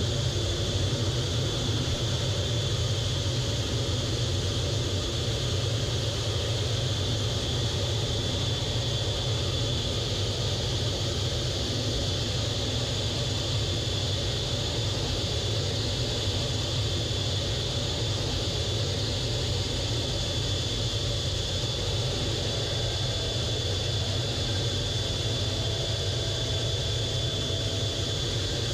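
Jet fighter engine and airflow noise heard from inside the cockpit in flight: a steady deep rumble with a thin high whine held throughout.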